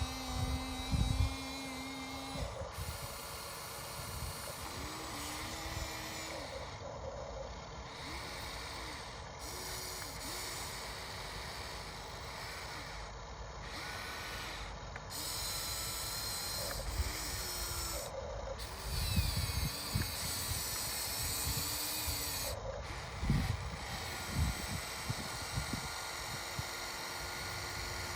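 RC excavator's hydraulic pump and motors whining in short runs that rise and fall in pitch as the machine works, with occasional low thumps.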